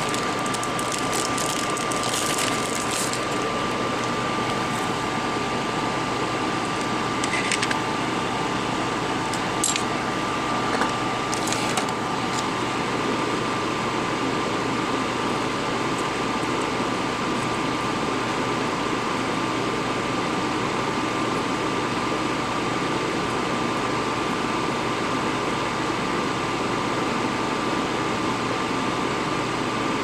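Steady whir of a small electric fan with a thin, even whine over it. A few light clicks and taps from tools and the board being handled come in the first dozen seconds.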